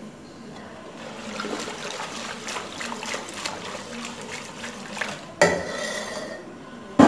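A metal wire whisk stirring thick lentil soup in a stainless steel pot, its wires clicking and scraping against the pot over sloshing liquid. About five and a half seconds in comes a sharp metal clang that rings briefly, and a loud knock right at the end.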